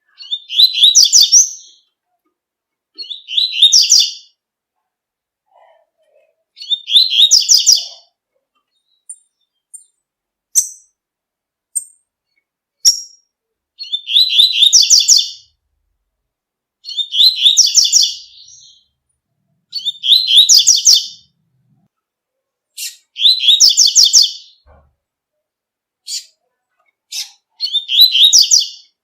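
Coleiro (double-collared seedeater) singing: fast, high, warbled 'tui tui' song phrases of about a second and a half each, repeated every few seconds. Short sharp chips fall between the phrases, several in the middle and a few near the end.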